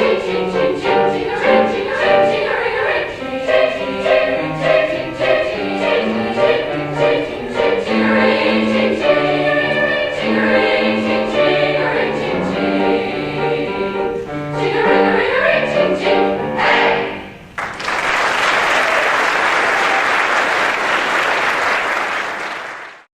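A choir singing with accompaniment, with sleigh bells jingling in a steady beat. The song ends a little past halfway, and audience applause follows, cut off abruptly near the end.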